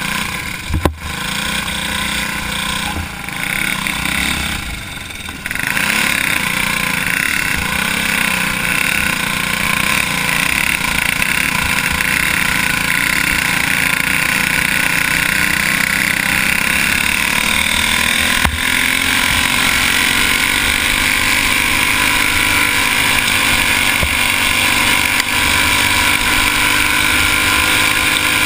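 Racing kart's small engine running hard, heard from a camera mounted on the kart. It eases a few seconds in, then picks up about five seconds in and holds a steady high drone that climbs slowly in pitch over the last ten seconds, with a single knock about a second in.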